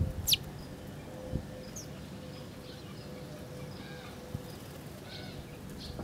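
House sparrows chirping, a scatter of short, high chirps that bunch together about four to five seconds in. A quick high note sweeps steeply down just after the start, and a faint steady low hum runs underneath.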